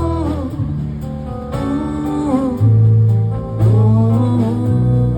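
Live band music: a bass line that changes note every second or so under guitar and a sliding, wavering lead melody.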